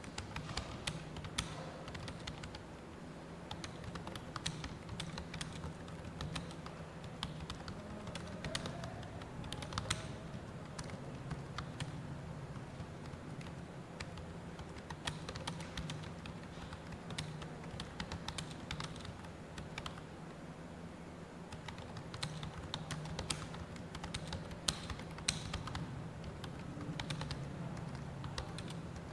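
Continuous fast typing on a computer keyboard: a steady stream of key clicks with scattered louder keystrokes.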